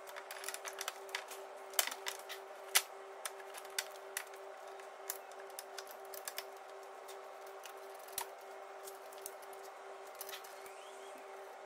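Scattered light plastic and metal clicks and taps as a new car air-con condenser is slotted into place and its plastic top locators are clipped in. The clicks are thickest in the first few seconds and thin out later. A steady hum runs underneath.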